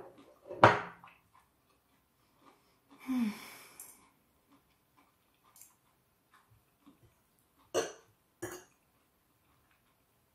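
A person eating with a fork from a plate: a loud clink of the fork about a second in, a short throaty vocal sound with a falling pitch around three seconds in, and two more sharp fork-on-plate clicks near the end.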